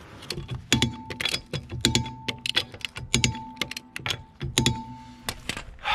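Ratcheting torque wrench clicking in quick runs of strokes as a nut is tightened to 150 Nm. A short steady tone sounds four times among the clicks.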